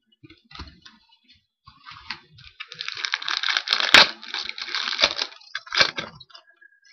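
Foil wrapper of a hockey-card pack crinkling and being torn open. A few light rustles come first, then a dense crackle about two and a half seconds in, with a sharp snap about four seconds in and one more crackle near the end.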